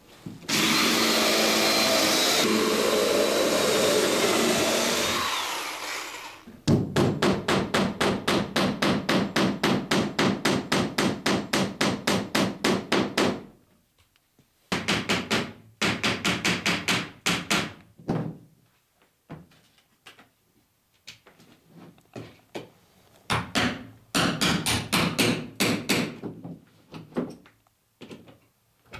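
A cordless drill runs for about five seconds, boring through a boat's rib and plank. Then a hammer taps copper boat nails in quick, even runs of about five strikes a second, first one long run and then several shorter bursts with pauses between them.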